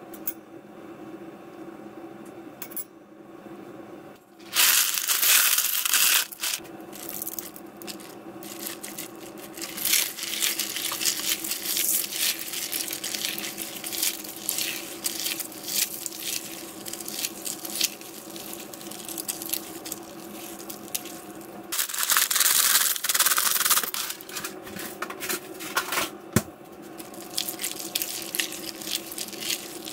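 Dry rice noodles and their packaging being handled: crinkling, cracking and rubbing. Two loud rushing bursts come about 5 seconds in and about 22 seconds in. A steady hum runs underneath.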